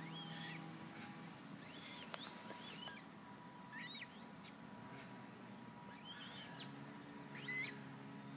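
Eurasian coot chicks peeping: about ten short, thin, high calls come at irregular intervals, over a faint steady low hum.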